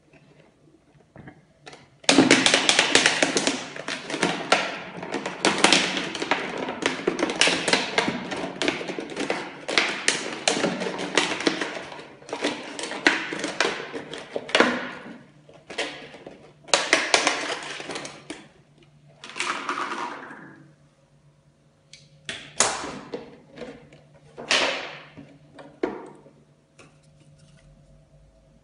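A large thin-walled plastic water bottle crackling and crinkling as it is cut open with a utility knife: dense runs of sharp cracks from about two seconds in, then a few shorter bursts of crackling handling near the end. A faint steady hum sits underneath.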